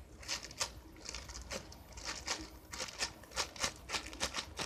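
Handling of squishy toys: a quick, irregular run of short crinkling and rustling noises, the kind made by plastic packaging.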